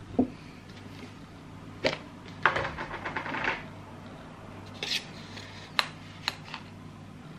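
Kitchen handling sounds: a metal spoon clinking and scraping in a tin of hot-chocolate powder, with a handful of sharp taps and knocks and a second or so of rattling scrape near the middle. A low steady hum lies underneath.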